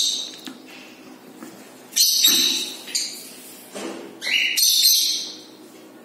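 Small aviary birds, budgerigars and cockatiels, calling in repeated bursts of harsh, high-pitched squawks. The longest bursts come about two seconds and about four and a half seconds in.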